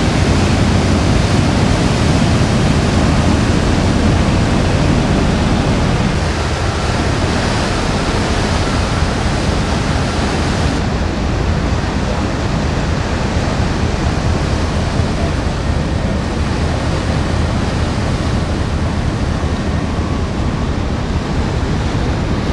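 Steady rushing noise of wind and churning sea water heard from a ferry's deck, with a low steady hum of the ship's engines underneath. About ten seconds in the sound turns duller, losing its hiss.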